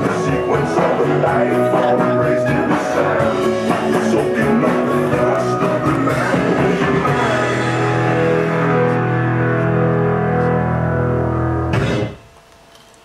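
Rock music with guitar and a steady beat, ending on a long held chord that cuts off abruptly about a second before the end.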